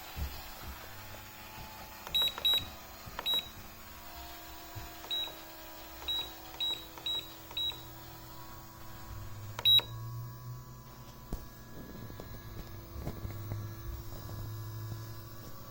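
Short high electronic beeps from a Huipang S6 Pro table tennis robot's control panel as its buttons are pressed, about nine of them spread over ten seconds, the last the loudest. A low steady hum comes in over the second half.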